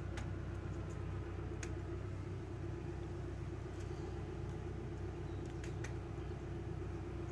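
A motor vehicle's engine running steadily: a low, even drone with a constant hum, and a few faint clicks.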